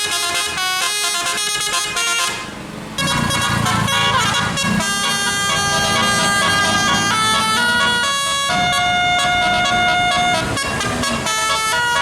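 Bus 'telolet' multi-tone horns playing quick-changing melodies. After a short break about two and a half seconds in, a bus engine runs underneath further horn melodies with longer held notes.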